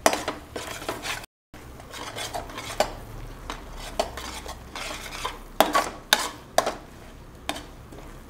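A spoon stirring and scraping in a cooking pan of frying coconut masala, with irregular sharp clinks as it knocks against the pan, and a faint sizzle underneath.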